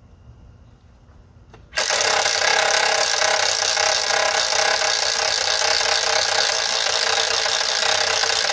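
Bosch 18-volt impact driver cutting in about two seconds in and running steadily, hammering a long drill bit through a spruce 6x6 post.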